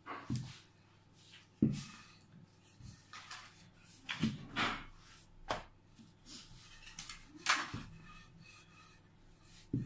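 Wooden rolling pin rolling out pizza dough on a floured pastry mat: irregular soft rubbing swishes, with a couple of sharp knocks of the pin.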